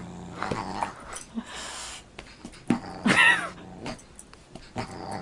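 Dog growling and yipping while play-fighting with a cat, with short scuffling knocks from paws on the couch. A loud wavering cry comes about three seconds in.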